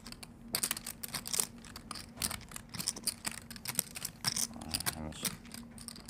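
Poker chips clicking and clacking as players handle and riffle their stacks, many small sharp clicks at an irregular pace, over a faint steady hum.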